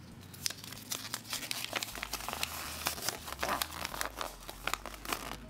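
A small folded paper leaflet being unfolded and smoothed flat by hand, crinkling with many irregular small crackles.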